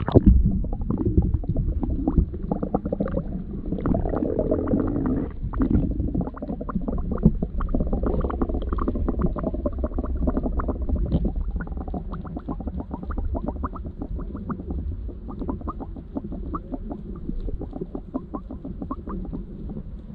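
An action camera plunges into the sea and then records underwater: a muffled low rumble of moving water with many small crackles and ticks. The sound is dull, with the highs cut off, as heard through the camera's housing.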